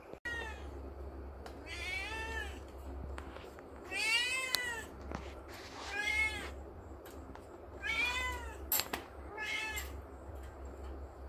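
Kitten meowing repeatedly: about six high meows, roughly two seconds apart, each rising and then falling in pitch. A couple of sharp clicks are heard between them.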